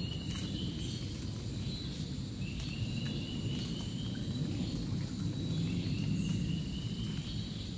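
Rainforest ambience: a high call repeats three times, each about a second and a half long and slightly rising, with a fainter steady high tone over a constant low rumble.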